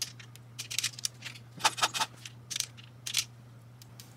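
Torque wrench ratcheting on the cam plate bolts of a Harley-Davidson Twin Cam as they are tightened to 90 inch-pounds: several clusters of short metallic clicks.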